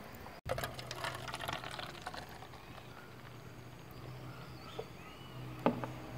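Radler beer poured from an aluminium can into a plastic cup, fizzing and crackling. The can is set down with a sharp knock near the end.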